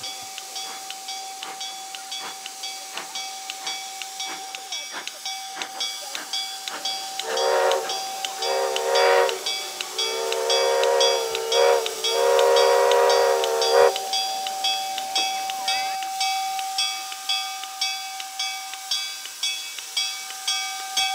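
Steam locomotive 6060, a 4-8-2, working toward and past with steady exhaust chuffs of about two beats a second, growing louder, over hissing steam. Its steam whistle sounds four blasts in the middle, the first two short and the last two longer.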